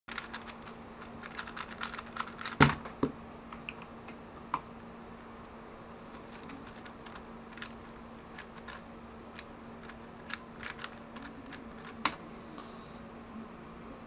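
3x3 speedcube being turned by hand: irregular plastic clicks of the layers turning, in quick clusters at first and sparser later, with a louder knock about two and a half seconds in.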